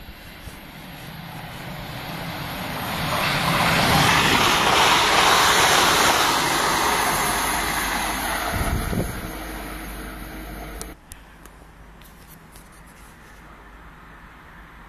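Train passing at speed: a rushing rumble that builds over about four seconds, holds, then fades and breaks off abruptly about eleven seconds in.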